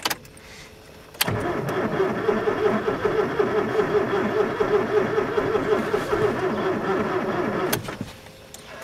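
Ford Escort 1.4 CVH petrol engine being cranked by its starter motor in deep frost for about six and a half seconds, starting about a second in, then stopping without the engine catching. The driver fears he has already flooded the spark plugs with petrol.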